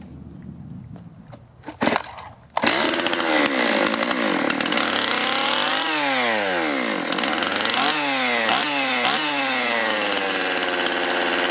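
Two-stroke Stihl chainsaw with its bar and chain off, pull-started about two seconds in and catching at once. It is revved up and down several times, then runs at a steady fast idle: the carburetor needs adjusting because it idles too high.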